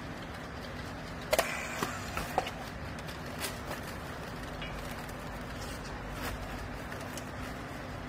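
A handheld strapping tool being worked on plastic strapping around a pressed bale: a few sharp clicks and knocks about a second and a half to two and a half seconds in, over a steady low machine hum.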